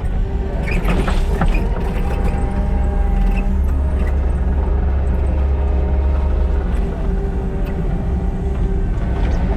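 Kubota SVL97-2 compact track loader's diesel engine running steadily under working load, with a few clicks about a second in.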